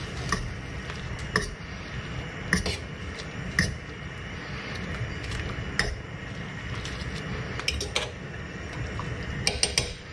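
Metal fork stirring noodles in a stainless saucepan of boiling water, clinking against the pot about once a second over a steady hiss from the boil. A quick run of clinks comes near the end.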